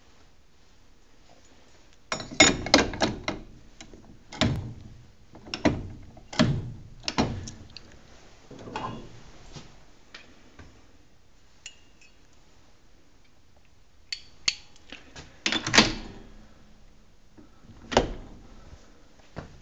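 K-35 streetcar drum controller worked by hand: its handle clacks through the notch positions in several quick runs of sharp mechanical clicks and clunks, with single ticks between and a lone loud clunk near the end.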